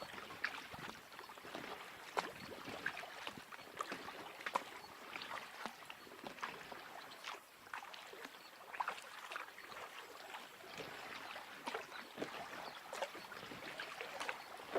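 Paddling a packraft: water splashing and trickling with many small, irregular splashes and drips from the paddle blades.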